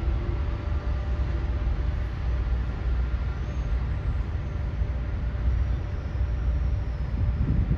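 Train running, a steady low rumble with faint steady tones above it.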